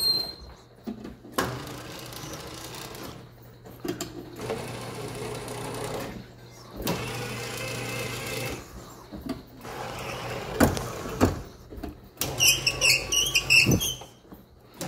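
Race units of a carnival water race game being driven down their metal guide rails: a mechanical running sound that starts and stops in stretches over a steady low hum, with a few sharp knocks.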